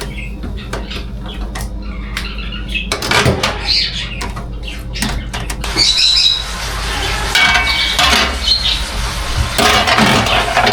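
Kitchen clatter from things being handled and put down: a run of clicks and knocks, with short high squeaks about six seconds in and again a little later.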